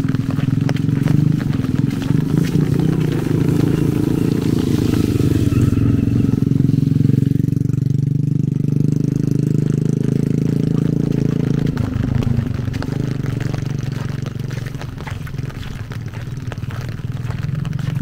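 Steady rain falling, with many close drops ticking densely over it.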